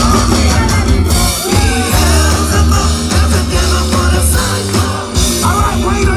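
Live rock cover band playing loudly, with electric guitar, bass, drums and keyboard under a man and a woman singing into microphones.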